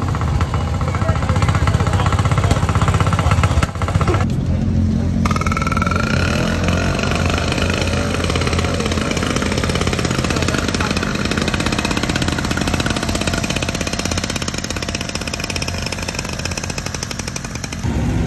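Vintage motorcycle engines running with a fast, even, pulsing beat, the sound breaking off abruptly twice around four and five seconds in.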